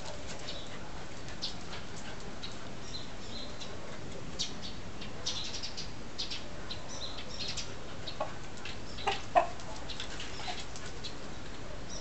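Betong rooster clucking, with short high chirps throughout and a few louder, lower clucks near the end, the loudest about nine and a half seconds in.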